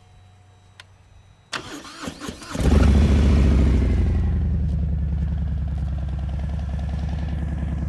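Harley-Davidson 114 cubic inch V-twin with aftermarket Vance & Hines exhaust being started: the starter cranks for about a second, the engine catches loudly about two and a half seconds in, flares, then settles into a steady idle.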